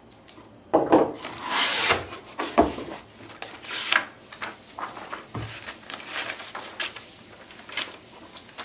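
Cardboard shipping box being opened and its packaging handled: a few loud rasping scrapes and rustles, then lighter clicks and scraping as things are moved about.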